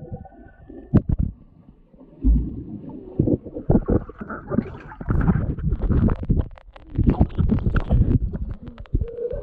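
Swimming pool water heard through an action camera held underwater: muffled gurgling and bubbling with irregular low thumps as it moves through the water, then splashing as it breaks the surface near the end.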